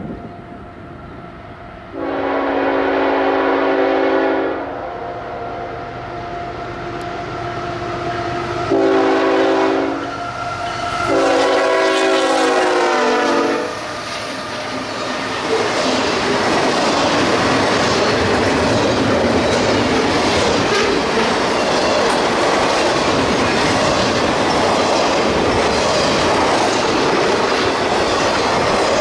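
CSX freight locomotive's multi-note air horn sounding a long, a short and a long blast as the train approaches, over the low drone of its diesel engine. Then the double-stack intermodal cars pass close by with a loud, steady rush of wheel-on-rail noise and clickety-clack.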